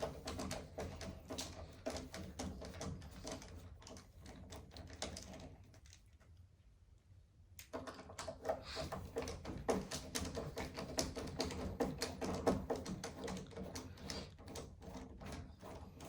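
Phillips screwdriver backing out the screws of a door latch faceplate: a fast run of small metal clicks and scrapes, with a break of about two seconds around six seconds in.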